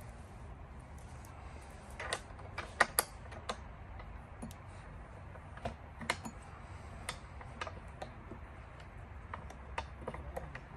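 Irregular small metal clicks and clinks as a bolt is fitted and turned by hand into a mobility scooter's steering pivot, with a cluster of louder clicks about two to three seconds in and scattered ones after.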